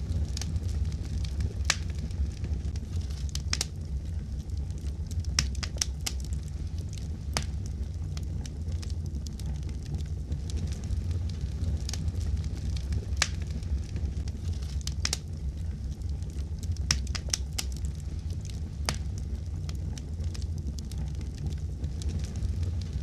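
Wood fire burning in a fireplace: a steady low rumble with irregular sharp crackles and pops, a few louder than the rest.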